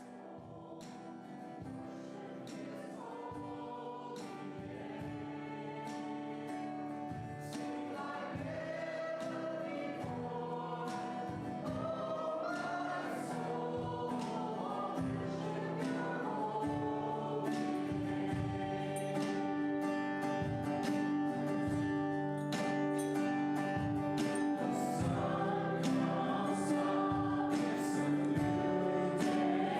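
Choir singing a hymn with music, growing steadily louder.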